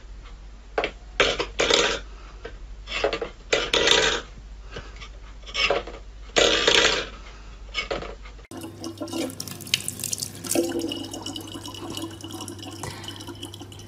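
A cat batting a stainless-steel bowl on a wooden floor: irregular clattering and scraping of the metal bowl. About eight and a half seconds in it cuts to a thin stream of water running from a tap into a plastic bottle, over a steady low hum.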